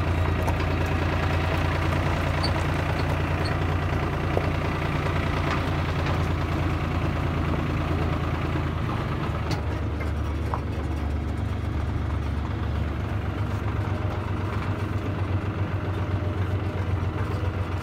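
Tractor engine running with a steady low drone, heard from the wagon it is pulling.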